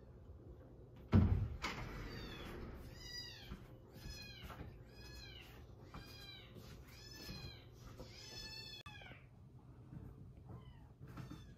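Kitten mewing over and over in high, arching cries, about one and a half a second, after a single thump about a second in.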